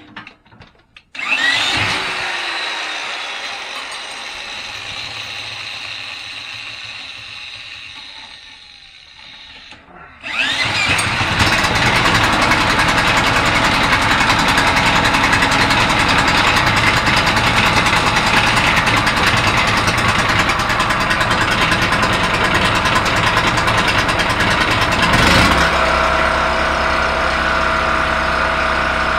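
Small Generac 3200-watt generator's single-cylinder engine spun over with an electric drill in place of its pull starter. The first burst, with a rising whine about a second in, dies away over several seconds; spun again about ten seconds in, the engine catches and keeps running on its new carburetor. About 25 seconds in the running note settles to a steadier, even pitch.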